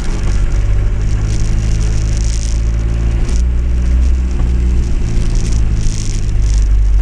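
Land Rover 110 Hard Top engine running steadily while driving slowly, heard from inside the cab, with rain pattering on the roof and windscreen.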